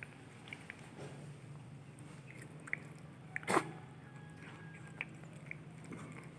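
A cat chewing pieces of fresh coconut meat, with soft scattered clicks and crunches. One short, loud noise about halfway through.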